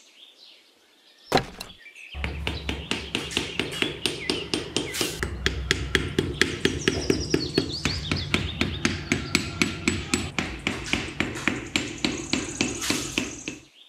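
Small metal hammer tapping small wooden stakes into a sandy base: one knock about a second in, then a steady run of quick taps, about four a second.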